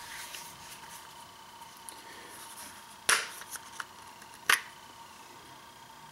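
Black polymer AR-15 magazines being handled: two sharp plastic clacks about three and four and a half seconds in, with a few lighter taps between them.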